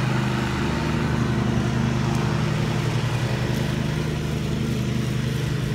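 Riding lawn mower engine running steadily at an even speed.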